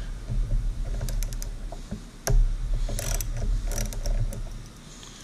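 A small hand tool is loosening the screw that holds an internal zinc anode in a Suzuki DF250 outboard's aluminum anode cover. It makes scattered metal clicks and ticks in a few short clusters, with a steady low hum underneath.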